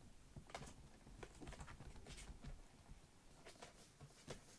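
Faint, irregular pattering and scuffing of kittens' paws on a tatami mat as they scamper and pounce in play.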